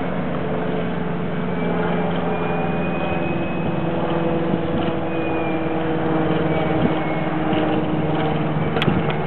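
Electric ducted-fan RC model jet flying overhead: a steady rushing noise with a high whine that holds its pitch.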